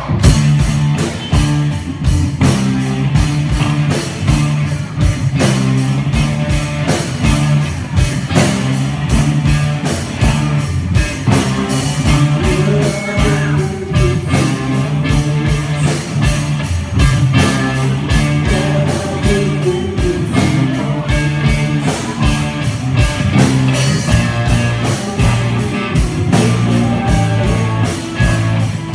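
Live rock band playing with no vocals: electric guitar, bass guitar and a drum kit, loud, with a steady driving beat.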